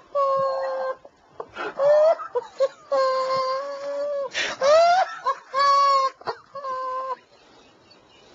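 A man's uncontrollable, stifled laughter: a run of high-pitched, wailing squeals, each drawn out for up to about a second, dying away near the end.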